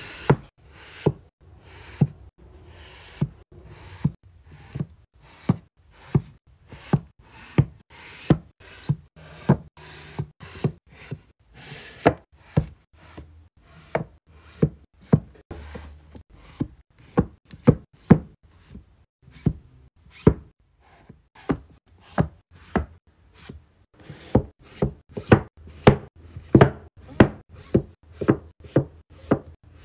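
Paperback books being set down and knocked into place on a shelf: a steady run of sharp taps and knocks, about two a second, louder in the last few seconds.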